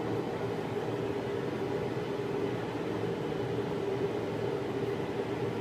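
A machine running with a steady hum and whoosh, holding an even pitch with no rhythm or change.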